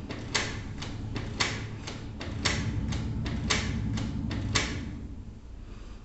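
Canon E410 inkjet printer's mechanism running as it readies its first print job: a low motor hum with a sharp click about once a second and lighter clicks between, stopping about five seconds in.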